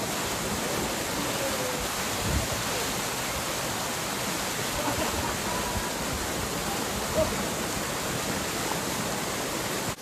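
Waterfall pouring over mossy rock ledges into a pool: a steady rush of falling water.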